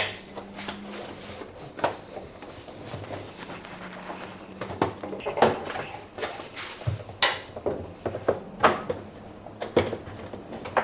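Band clamp being worked around a washing machine's rubber door seal by hand: scattered clicks and knocks at irregular intervals.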